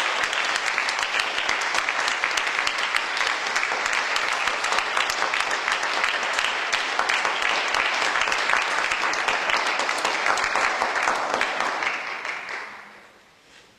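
Audience applauding, a dense steady clatter of clapping that dies away near the end.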